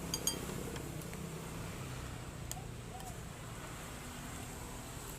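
A steady low motor hum, like a passing or idling vehicle, with its pitch sliding down a little; a few light clinks near the start and one more a couple of seconds in.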